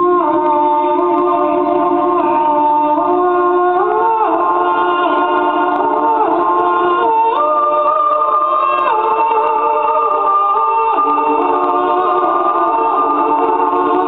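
Choir-like music: several long held notes sounding together in harmony and moving to new pitches in slow steps, about once a second.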